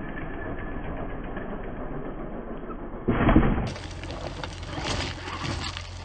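Traxxas X-Maxx electric RC monster truck whirring from its brushless motor and drivetrain during a jump. About three seconds in comes a loud thump as it lands, followed by more whirring and a few lighter knocks.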